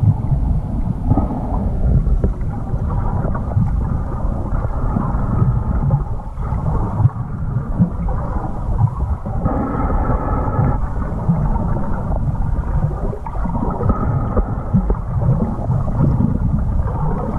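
Muffled, uneven underwater rumble and sloshing of lake water moving around a camera held below the surface as it glides along.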